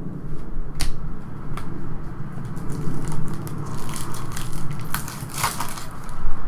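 Trading cards being handled and a shiny foil card-pack wrapper crinkling as the pack is torn open, with scattered light clicks and a louder ripping rustle about five seconds in.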